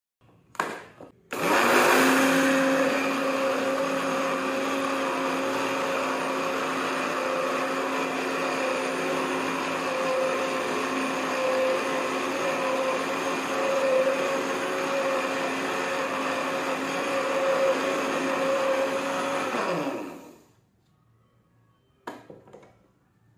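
Philips HR2042 blender's 290 W motor driving the four-blade grinding mill, grinding granulated sugar into a fine powder: a steady whir for about eighteen seconds that then winds down with falling pitch. Short plastic clicks as the mill cup is fitted on just before the start and lifted off near the end.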